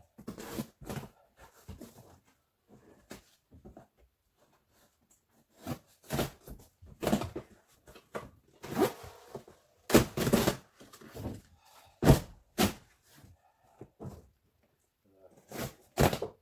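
A large cardboard pallet box being torn and pulled open by hand: irregular rustling, tearing and thunks of cardboard, loudest about ten and twelve seconds in.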